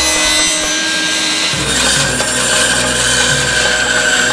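Power saws, a sliding table saw and then a band saw, cutting pine boards: a steady machine whine with the blade rasping through the wood, the rasp growing fuller about a second and a half in.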